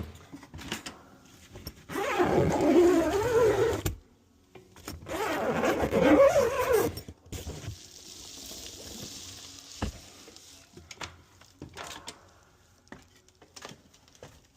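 Two loud stretches of squeaky scraping and creaking, each about two seconds long, followed by rustling and a few light knocks, as someone climbs up into an attic.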